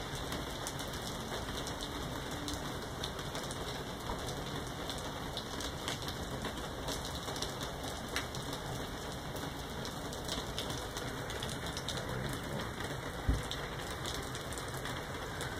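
Steady rain falling, a dense wash of noise with many sharp ticks of individual drops striking nearby surfaces. A single short low thump comes late on.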